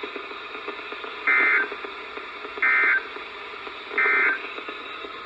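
Three short bursts of NOAA Weather Radio SAME digital data tones, each about a third of a second long and about a second apart, with a warbly two-tone buzz. Their shortness and the threefold repeat fit the end-of-message code that closes a broadcast alert or test.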